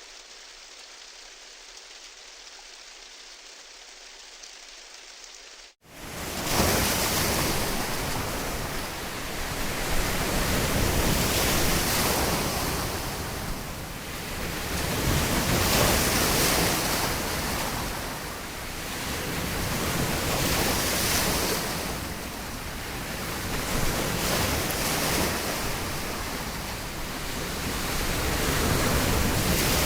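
Steady hiss of rain. Nearly six seconds in it cuts off abruptly, giving way to ocean waves breaking on a shore, which swell and fall back every four to five seconds.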